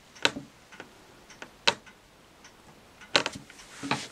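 A few short, sharp clicks and taps of a plastic-bagged comic book being handled and stood upright on a table. The loudest comes about one and a half seconds in, and a close pair comes near the end.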